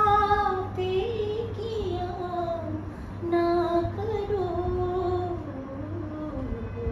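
A woman singing without accompaniment, holding long notes that slide from pitch to pitch in a slow melody, which sinks lower near the end. A steady low hum runs underneath.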